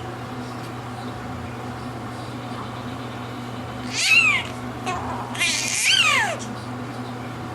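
A newborn baby fussing: a short, high-pitched falling cry about four seconds in, then a longer cry that rises and falls around six seconds.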